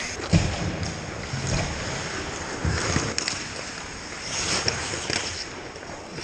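Ice hockey play up close: skates scraping and carving across the ice, with a few sharp clacks of stick and puck, one just after the start and another about three seconds in.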